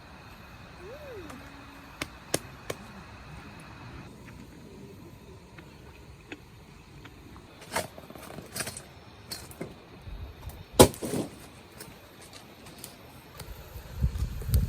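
A scattered handful of light clicks and knocks over a quiet background, the sharpest about eleven seconds in.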